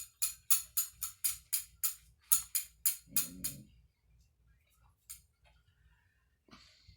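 Metal jingles shaken in a steady rhythm, about four strokes a second, stopping after about three and a half seconds. A brief low vocal sound comes near the end of the jingling.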